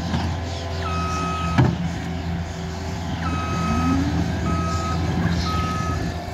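Caterpillar 299D3 compact track loader's diesel engine running steadily while its backup alarm beeps: one longer tone about a second in, then regular beeps about once a second from the middle on. A single sharp knock about a second and a half in.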